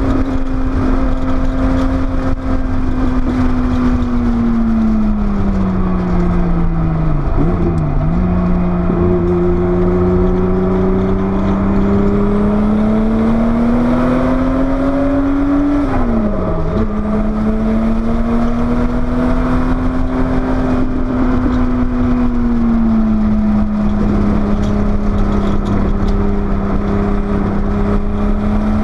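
Porsche 930 Turbo's air-cooled turbocharged flat-six on track, over steady wind and road rumble. The engine note falls and dips twice about seven to eight seconds in (braking and downshifts), climbs steadily under acceleration, drops sharply with a shift about sixteen seconds in, then holds nearly steady.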